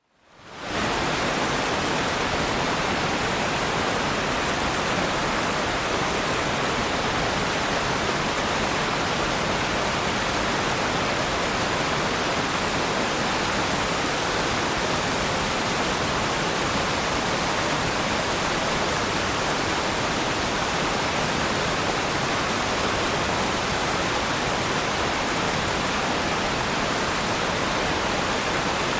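Waterfall: a steady rush of falling water, fading in over the first second and then holding even.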